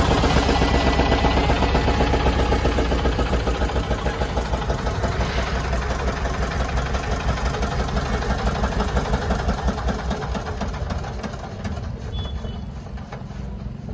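A fishing boat's engine running with a fast, even chugging, growing quieter over the last few seconds.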